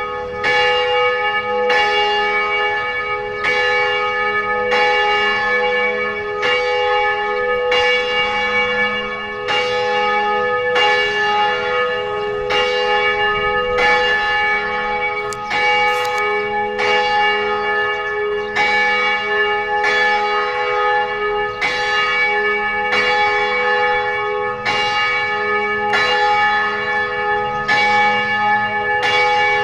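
Church bell ringing in steady strokes about every one and a half seconds, each stroke ringing on into the next.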